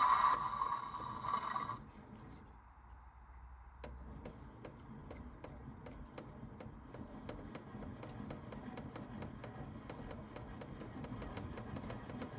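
A toy Bosch Logixx 8 washing machine. A loud steady whirring sound stops about two seconds in. After that the machine runs quietly with a faint, even mechanical ticking, a few ticks a second.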